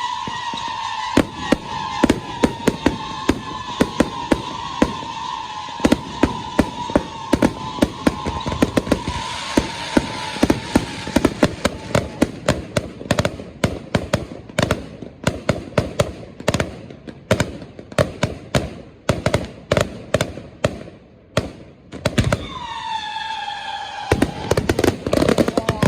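Fireworks exploding in a rapid run of sharp cracks and bangs. A high whistling tone slowly falls in pitch through the first half, and another shorter whistle drops near the end as the crackling becomes dense.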